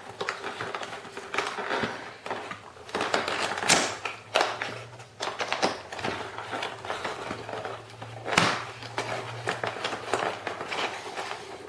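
Cardboard box and plastic packaging being handled and pulled apart: irregular rustling, scraping and crackling with a few sharper knocks.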